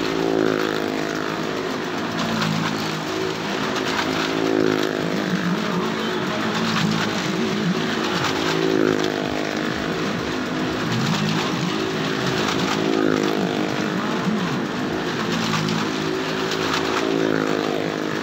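Vehicle engines running round the vertical wooden wall of a well-of-death pit, a car among them. The engine note swells and fades about every four seconds as a vehicle sweeps past on each lap, over a steady engine drone.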